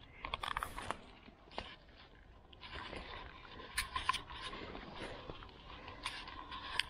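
Rustling of wet leaf litter with scattered twig snaps and scrapes as someone pushes through fallen branches on the forest floor.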